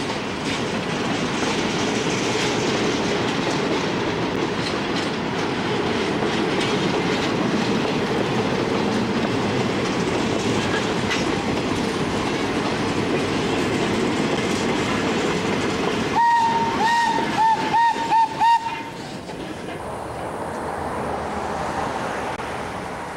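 Excursion train's passenger cars and caboose rolling past with a steady rumble and the clickety-clack of wheels over rail joints. About sixteen seconds in, a single-pitched whistle gives one longer blast, then a quick string of short toots, from the engine at the rear of the train. After that the rumble is quieter.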